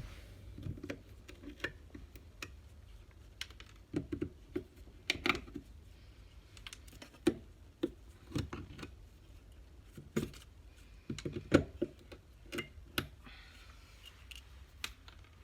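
Irregular light clicks and taps of staples being pried out of wooden framing as insulation is taken down.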